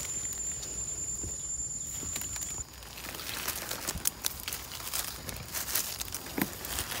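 Rustling and crackling of forest-floor leaf litter, with scattered sharp clicks, as someone moves through it while foraging for termite mushrooms. A steady high-pitched whine cuts off suddenly about two and a half seconds in.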